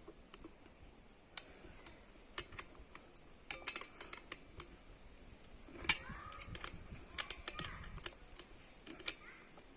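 Scattered sharp metallic clicks and clinks of tools working the bolts of a chain saw adapter fitted to a hand angle grinder as it is tightened. The loudest knock comes about six seconds in.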